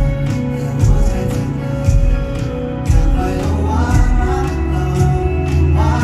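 Live pop-rock band playing, with drum hits about once a second under held guitar chords and a man singing, recorded from the audience.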